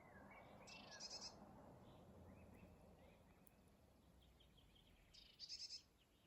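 Quiet outdoor ambience with two short, trilled bird calls, about a second in and again near the end, and faint chirps between them.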